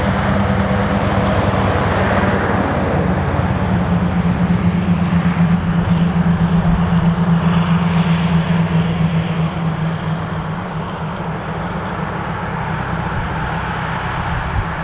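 Scania R144G 460's straight-piped 14-litre V8 diesel running as the truck drives past and pulls away. The exhaust note is loudest and pulsing in the middle, its pitch sliding down slightly, then it fades as the truck moves off.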